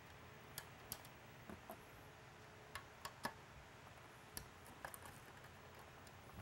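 Faint, irregular small clicks and ticks of a screwdriver turning out the small screws on the top circuit board of a Whelen L32 LED beacon, about ten in all, the sharpest a little past three seconds in.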